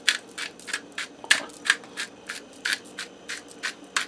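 Hand-held pepper grinder being twisted, cracking peppercorns in short gritty grinding strokes about three times a second.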